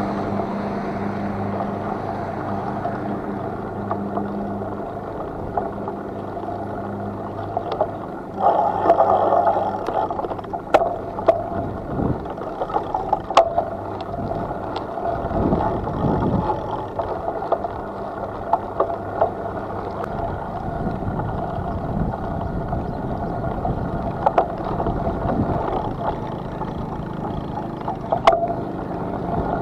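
Steady rush of wind and rolling noise while riding a bicycle, with a low steady hum in the first several seconds and scattered sharp clicks and rattles.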